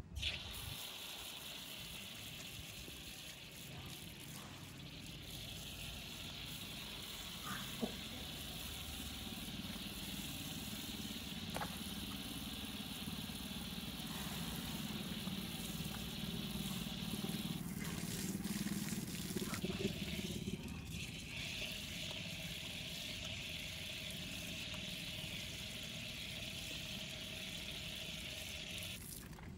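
Water running from an outdoor standpipe tap and splashing onto concrete as feet and hands are rinsed under the stream; the flow starts suddenly at the outset, and its splash changes in tone partway through as the feet and hands move under the water.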